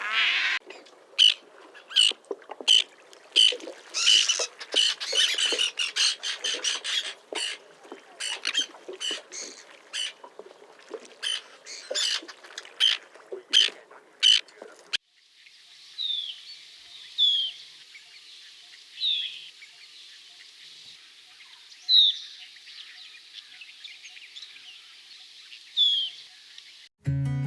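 Bird calls in two recordings: for about the first half, a rapid series of loud, harsh repeated calls; then, after a cut, a bird giving single short down-slurred notes every couple of seconds over a light hiss.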